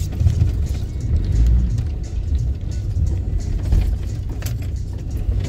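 A 4x4 crawling along a rutted, muddy track, heard from inside the cab: a steady low rumble from the engine and running gear, with a few light knocks.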